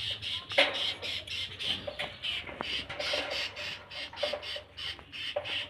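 Kapasan (triller) chirping in a quick series of short high notes, about three a second.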